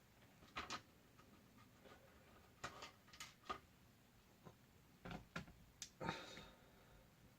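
Faint, scattered clicks and light scrapes of a small screwdriver working screws out of a Chromebook's bottom case, about eight short taps spread irregularly.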